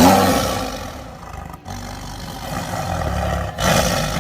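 A large animal roaring, low-pitched, loudest at the start, in short pieces that break off abruptly about one and a half and three and a half seconds in.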